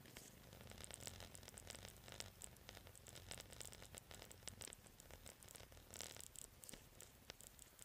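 Faint, irregular rustling and crackling of clothing, pack and forest floor as someone walks through the woods, over a low rumble.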